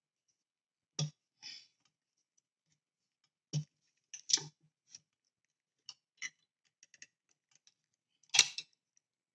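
Small model-kit parts being handled and fitted together by hand: scattered light clicks and knocks, the loudest a sharp knock about eight seconds in.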